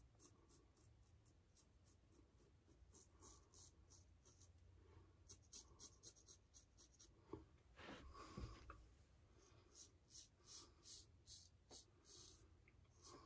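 Faint scraping of a Blackland Blackbird titanium double-edge safety razor with a Bolzano SuperInox blade cutting stubble through lather, in quick short strokes several a second. A louder knock and rustle comes a little past the middle.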